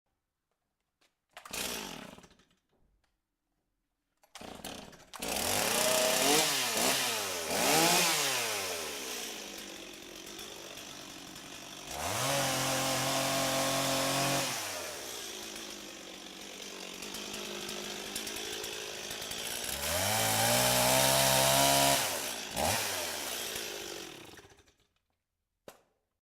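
Chainsaw engine: a short first burst, then it starts a few seconds in and runs, revved up several times with rising pitch and dropping back to a lower idle between. It is shut off near the end, and a small click follows.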